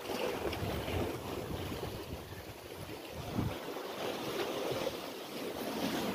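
Sea waves washing against the rocks below, with gusts of wind buffeting the microphone now and then.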